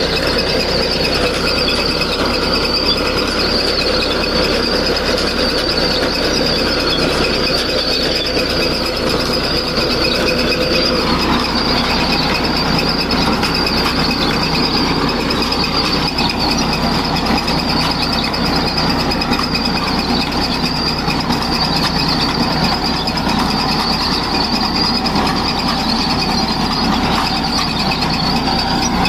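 Bengal gram (chickpea) reaper-harvester running steadily: engine and cutting mechanism at work, with a steady high-pitched whine over the running noise.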